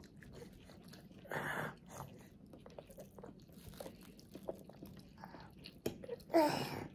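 A toddler eating: a metal spoon and fork clicking and scraping on a plate, with quiet chewing. Two short louder noises come about a second and a half in and near the end.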